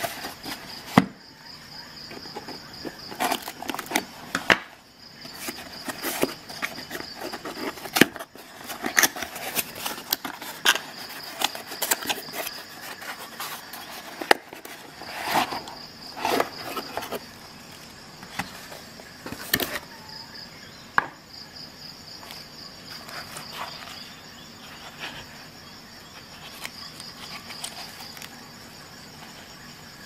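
Cardboard box being opened and handled and a nylon knife sheath with a plastic buckle drawn out of it: crackly rustling and scraping with sharp clicks and taps. The loudest clicks come about a second in, around eight seconds and around twenty seconds, and the handling gets quieter in the last third. A high, pulsing chirp sounds in the background through much of it.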